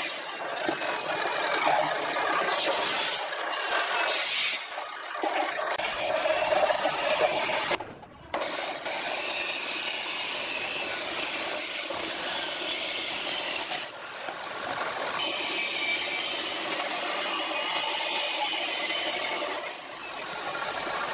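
Abrasive cut-off saw cutting steel box tubing, its wheel grinding through the metal over a steady motor whine, with a short break about eight seconds in.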